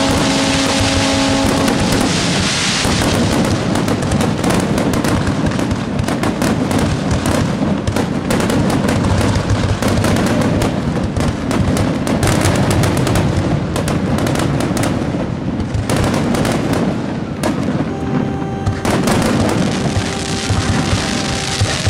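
Fireworks finale: many shells bursting in quick succession, a near-continuous run of bangs and crackles.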